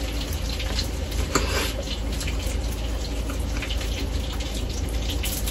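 Spaghetti being slurped and eaten with forks, with brief scraping and clicking sounds over a steady background hiss and low hum.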